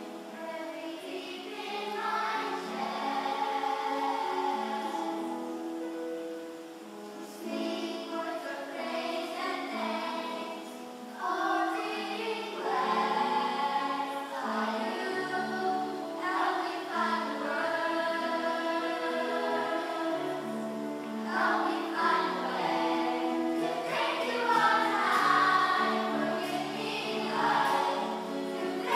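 Junior children's choir singing a song with held notes, accompanied by acoustic guitar.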